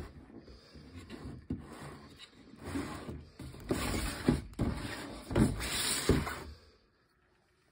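Cardboard box being handled on a stone countertop: rubbing and scraping with several dull knocks, stopping about two thirds of the way through.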